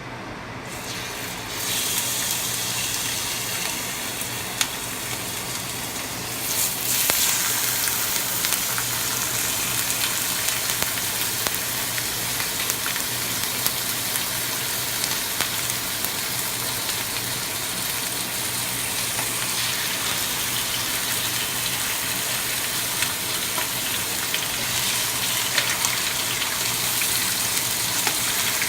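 Chicken frying in olive oil in a skillet: a steady sizzle with scattered crackles that starts about two seconds in and gets louder about six seconds in.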